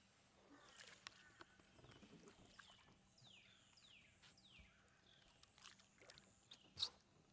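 Near silence: faint outdoor ambience with a few quick, high, falling chirps about three seconds in and one sharp click near the end.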